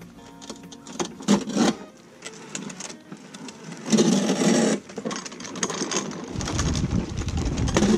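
Mowox three-wheel self-propelled push mower going over a concrete sidewalk edge, its deck scraping and knocking on the concrete as the single front wheel drops into the lawn and the mower bottoms out. A series of knocks, with the loudest scraping clatter about four seconds in and a low rumble from about six seconds on.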